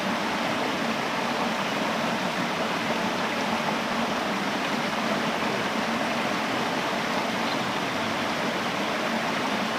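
Shallow rocky stream rushing over small rapids, a steady even rush of water.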